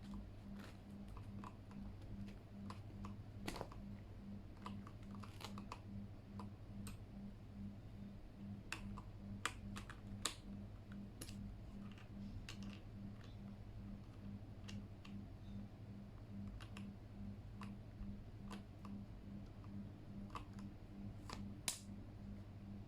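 Sparse, irregular clicks and taps from a Keychron K8 mechanical keyboard being worked on by hand, with a few sharper clicks standing out. A low hum pulsing about twice a second runs underneath.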